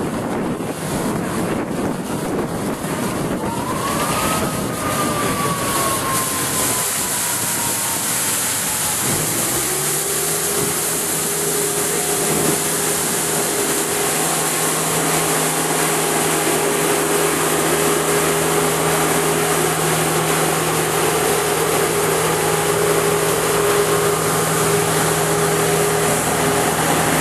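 Elgin Pelican street sweeper running and moving, a steady loud mechanical rush. About four seconds in, a whine rises, then slides slowly down. From about nine seconds a steady low hum with a higher tone above it sets in.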